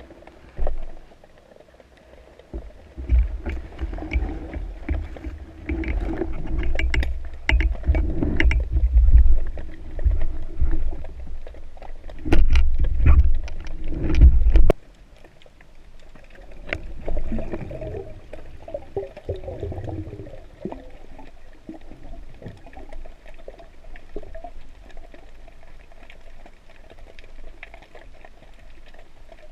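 Water sloshing and gurgling around an underwater camera, with a low rumble and scattered clicks and knocks, loud for the first half and dropping suddenly about halfway through to a quieter wash.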